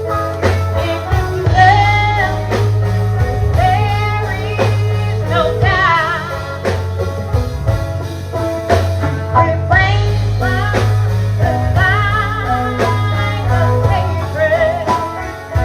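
Gospel group singing live with a band: a sung lead line with vibrato over a steady bass, guitar and a beat.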